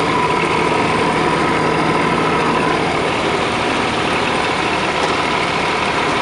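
Sterling truck's Caterpillar diesel engine idling steadily.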